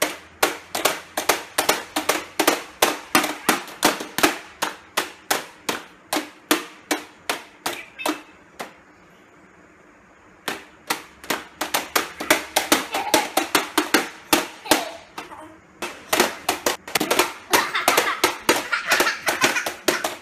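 Plastic toy mallets banging on a plastic whack-a-mole pop-up toy: a fast run of sharp plastic knocks, about three a second, with a pause of a couple of seconds near the middle before the banging resumes.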